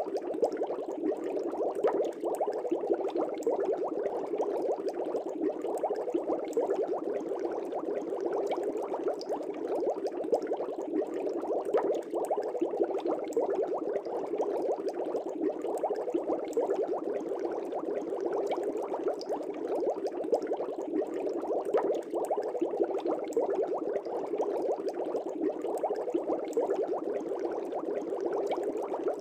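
Air bubbles streaming through the water of a fish tank, a dense, even bubbling that never lets up.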